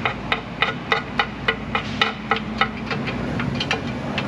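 Hand ratchet clicking in a steady rhythm, about three clicks a second, as torque converter bolts are run in on a transmission install; the clicks come quicker near the end.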